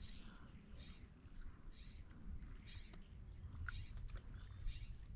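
A short, high animal call repeating about once a second, over a low steady rumble.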